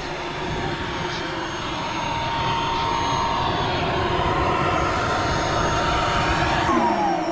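Small gas turbine of a radio-controlled L-39 Albatross model jet idling with a steady whine as it taxis. Near the end the whine starts falling in pitch as the turbine winds down.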